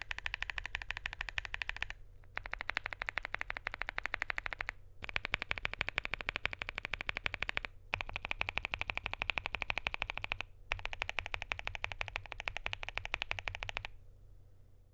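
Mechanical keyboard typing: a Knife Join65 with lubed Gazzew Boba U4T V2 tactile switches on an FR4 plate, keys struck in very fast runs of clicks. There are five runs of about two and a half seconds each, with short pauses between them, each with a slightly different ringing pitch.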